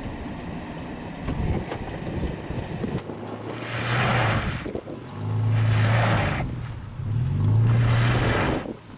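A vehicle engine revving hard in repeated bursts of about a second each, with a rushing hiss on top: the wheels spinning as the vehicle struggles for grip in snow. The first few seconds hold a low rumble before the revving starts.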